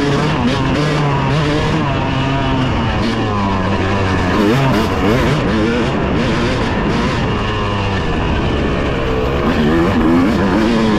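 Dirt bike engine running hard on an off-road trail, its pitch climbing and dropping again and again as the throttle is opened and closed.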